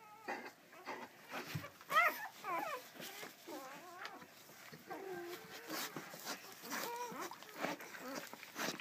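Newfoundland dog whimpering: a few short, high, wavering whines, the clearest about two seconds in, among soft clicks.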